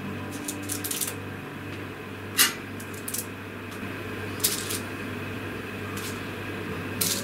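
Spatula scraping and tapping on a metal baking tray as baked pastries are lifted off and set down on a wire cooling rack: scattered light clicks and scrapes, the sharpest about two and a half seconds in, over a steady low hum.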